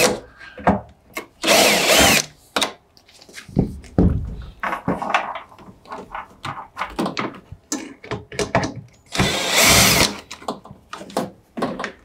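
Cordless drill-driver whirring in short bursts of about a second, backing out the screws that hold a washing machine's top cover. Small clicks and knocks of handling come between the bursts.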